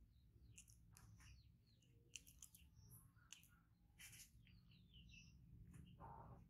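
Near silence: room tone with a low hum, scattered faint ticks and small high chirps, and a soft rustle about six seconds in.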